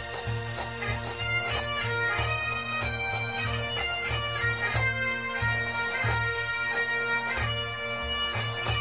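Bagpipe music: a melody played over a steady drone, with a low rhythmic pulse underneath.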